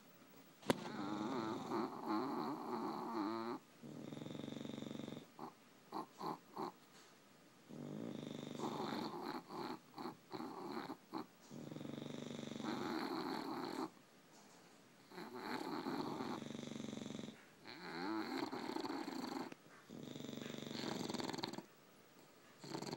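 Sleeping English bulldogs snoring: a long snore every two to three seconds, with a few short snorts around six seconds in and again near ten seconds. A single sharp click sounds near the start.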